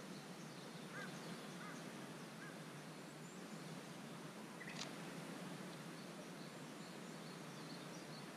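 Quiet outdoor ambience: a steady hiss with faint, scattered bird chirps, a few in the first couple of seconds. One short sharp click a little past halfway.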